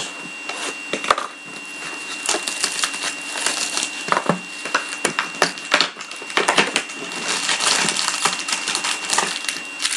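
Sealed trading-card boxes being handled and opened: irregular crinkling of plastic wrapping and clicks and scrapes of cardboard.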